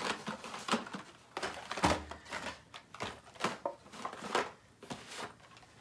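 Hot Wheels cars in plastic blister packs on cardboard cards being handled and set down, a string of irregular light clicks and crinkles, with a heavier knock about two seconds in.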